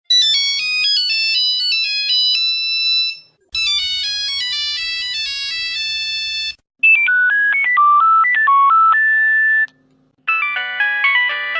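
Nokia mobile phone ringtones played one after another: four different short electronic melodies of about three seconds each, each with its own timbre, separated by brief gaps.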